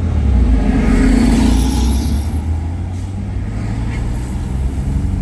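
Car driving on a city road: steady low rumble of engine and tyres, with a louder rushing swell in the first couple of seconds that fades away.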